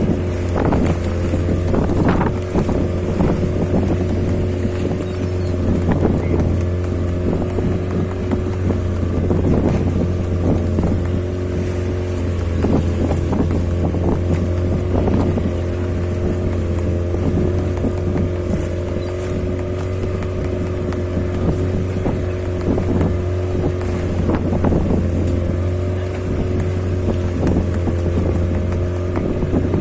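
A small fishing boat's engine running steadily with a constant low hum, while irregular knocks and rustling come from catch and gear being handled on deck.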